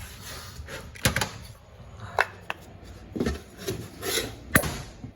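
Scattered sharp clicks and knocks, about seven of them, from metal parts and tools being handled while the low/reverse piston return spring of a 4L60E transmission is pressed down with a compressor tool.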